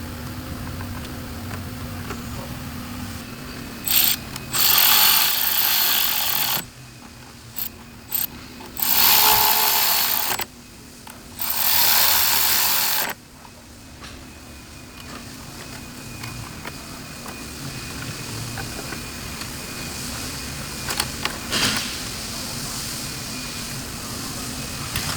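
A handheld power tool runs in three bursts of about two seconds each, as fasteners are driven. A few sharp clicks of tool handling come between and after the bursts, over a faint steady low hum.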